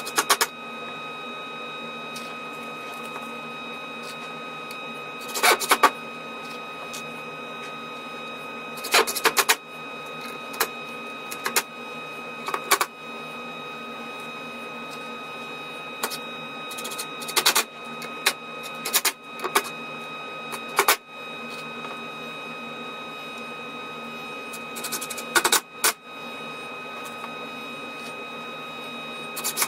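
A small electric motor runs steadily with a constant whine, broken by irregular clatters and knocks.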